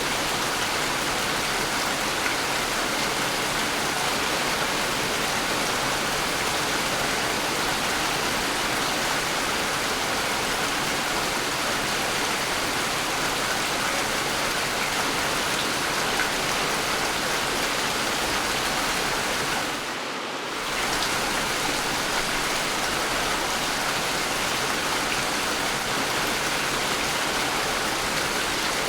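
Steady heavy rainfall, an even hiss of rain. It drops briefly in level for about a second roughly two-thirds of the way through.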